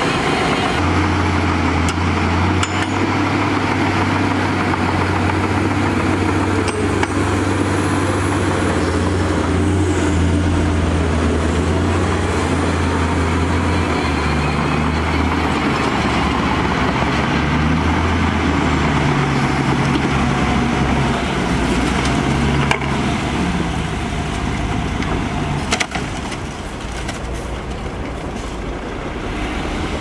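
Heavy diesel machinery running: a Shantui DH17 crawler bulldozer's engine holds a steady low note while pushing dirt. About halfway through, a dump truck's diesel takes over while its raised bed tips out a load of dirt.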